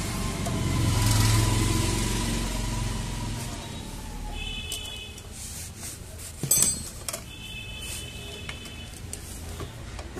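A motor vehicle's engine passes by, swelling and then fading over the first few seconds. About six and a half seconds in comes a sharp metallic clink from hand tools, followed by a few lighter ticks.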